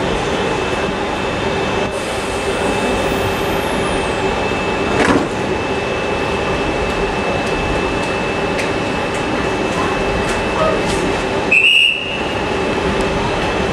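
Railway station ambience: a steady hum and rumble from electric trains standing at the platforms, with a steady whine on top. A short, loud, high squeal comes near the end.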